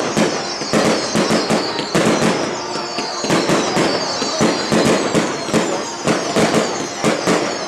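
Firecrackers going off in a rapid, irregular string of sharp bangs and crackles, with high whistles falling in pitch above them.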